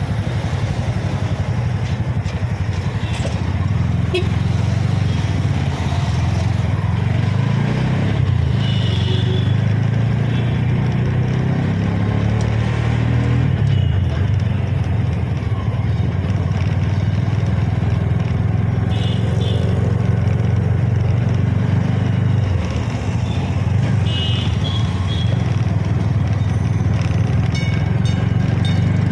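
Auto rickshaw's small engine running steadily as it rides through city traffic, heard from aboard as a continuous low drone. A few short high-pitched sounds from the surrounding traffic come through now and then.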